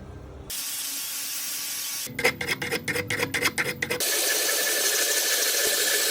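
Metal finishing on cast copper: rapid back-and-forth scraping or rasping strokes, about five a second, between stretches of steady hiss from a running power tool, in abruptly cut segments.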